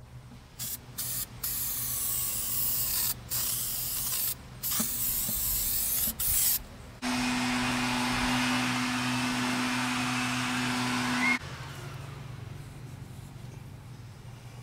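Aerosol can of foam spray adhesive spraying in several short bursts, then one long spray of about four seconds with a low steady tone under the hiss, which cuts off sharply. A faint low hum continues afterwards.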